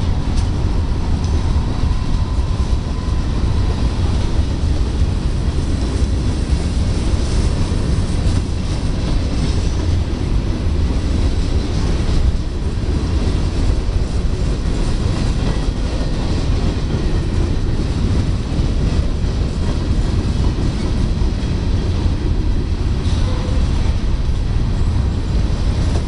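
Covered hopper cars of a freight train rolling slowly past, a steady rumble and clatter of steel wheels on the rails.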